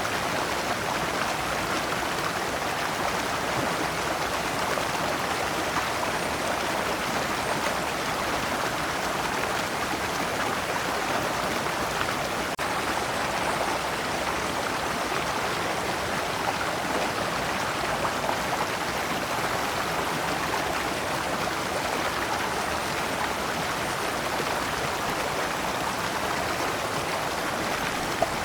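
A shallow stream flowing steadily over large rocks, a continuous rushing and splashing of water through small cascades.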